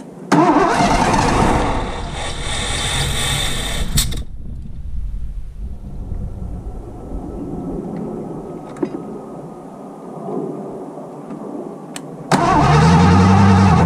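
Carbureted Ford 302 V8 being cranked and firing up briefly. It comes on loud for about four seconds, settles into a lower rumble, then sounds loud again near the end. It is a rough, troubled start that didn't sound good, on an engine that has been backfiring.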